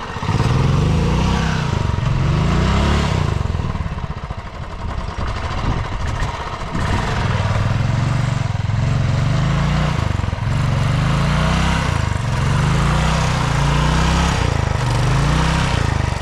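Royal Enfield Classic 350's single-cylinder engine revved up and down again and again, with a short let-off about four seconds in, as the bike sits with its rear wheel sunk in deep mud and is pushed from behind.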